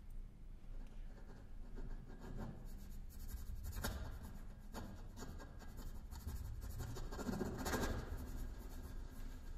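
Soft, irregular scratching and rubbing strokes on a kalimba's body, picked up close and amplified, growing denser and louder toward the end.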